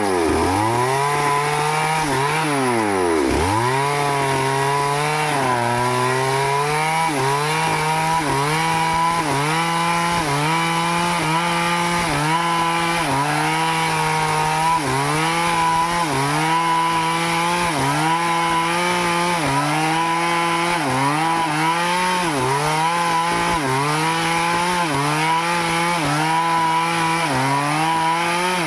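Stihl chainsaw running hard while cutting a teak tree. The engine pitch sags under the load of the cut and recovers about once every second and a half. About three seconds in, the engine drops sharply to a low pitch and climbs back up.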